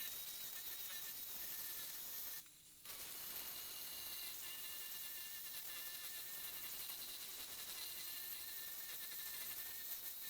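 Merlin2 mini angle grinder running with a 120-grit sanding disc against wood: a steady high whine over a sanding hiss. It drops out briefly about two and a half seconds in.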